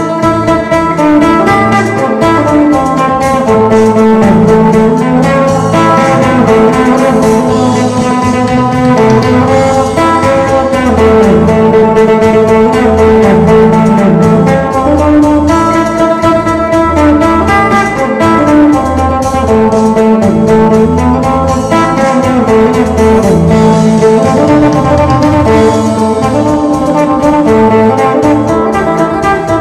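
Isan phin, a three-string plucked lute, playing a lam phloen tune over a fuller accompaniment, with held tones and a bass line that steps up and down.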